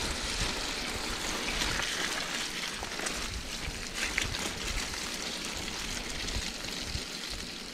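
Mountain bike tyres rolling fast through wet mud and puddles on a rutted dirt track, a steady wet hiss and splashing, with a few sharp clicks as the bike jolts over bumps.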